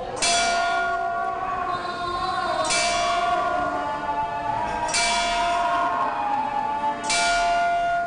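Large hanging metal bell, the Ramadan fasting bell (nombu mani), rung by pulling the chain on its clapper. It is struck four times about two seconds apart, each stroke ringing on into the next. The bell marks the times of prayer and of breaking the fast.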